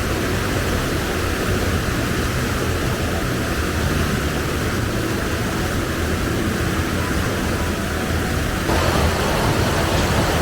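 Waterfall, a steady rush of falling water that grows a little fuller and louder near the end.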